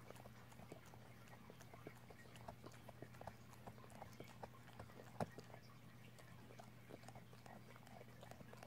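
A dog gnawing on a rawhide bone: faint, irregular clicks and crunches of teeth on rawhide, with one sharper crack about five seconds in.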